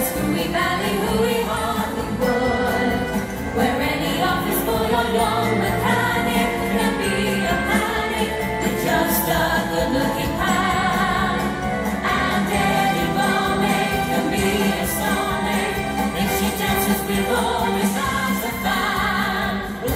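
Upbeat stage-show music for a dance routine, with a choir of voices singing, playing steadily throughout.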